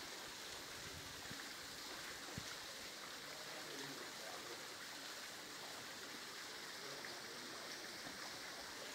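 Faint, steady rush of a thin mountain waterfall spilling down a rock face into a pool, with the stream below.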